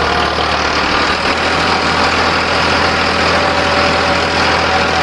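Farmtrac 60 tractor's diesel engine running steadily under load, pulling a mounted disc plough through stubble and soil.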